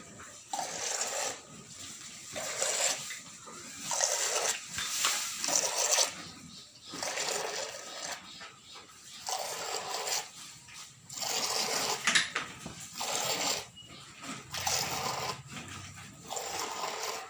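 Milk squirting in spurts as a cow is milked by hand, in a steady rhythm of roughly one spurt a second.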